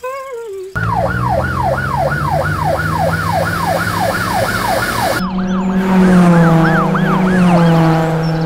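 Police car siren sound effect in a fast yelp, about four up-down sweeps a second, over a low steady drone. About five seconds in it changes to a slower wail.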